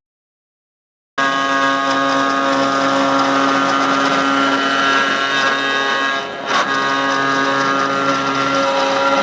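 Home-built CNC machine running, a loud steady mechanical whine of several fixed tones, with a brief dip about six and a half seconds in. It starts abruptly after a second or so of dead silence and cuts off sharply at the end.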